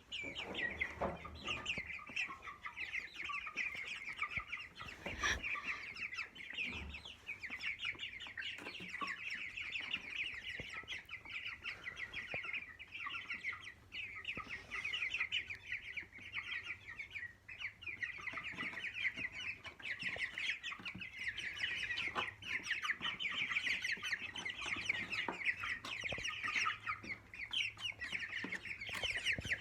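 A flock of young broiler chickens calling continuously, with a dense chatter of high cheeps and clucks. A single sharp knock about five seconds in.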